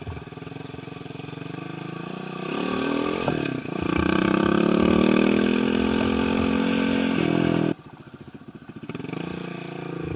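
Small motorcycle engine under way. It revs up around the third second and holds high revs, then drops away suddenly near the eighth second before picking up again.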